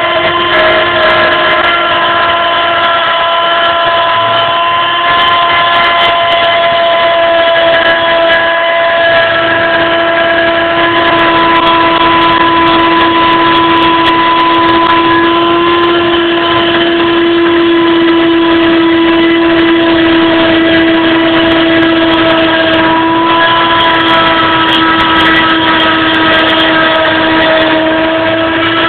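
CNC milling machine's spindle running with a loud, steady whine as the cutter mills 2.5 mm ABS plastic sheet.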